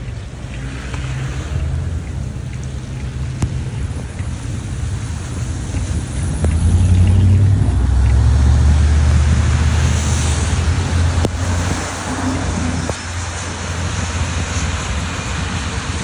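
Wind buffeting a phone's microphone in a low rumble, loudest through the middle, over traffic hissing past on a wet, slushy road.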